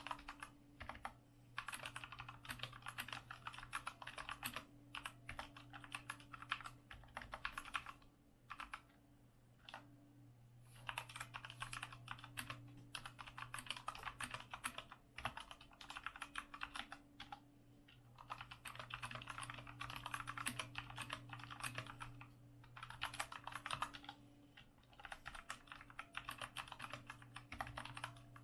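Typing on a compact 60% mechanical keyboard: rapid key clacks in runs of several seconds, broken by short pauses. A steady low hum runs underneath.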